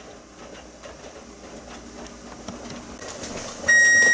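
Electric range's kitchen timer sounding its alarm: one loud, steady, high-pitched beep that starts suddenly near the end, signalling that the 10-minute jar-sterilizing time is up. Before it there is only a faint hiss.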